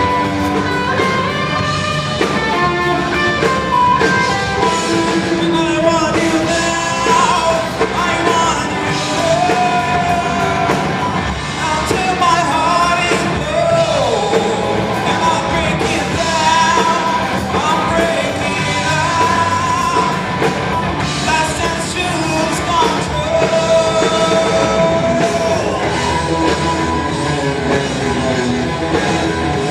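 Live rock band playing with a male singer, electric guitars and a drum kit, loud and continuous.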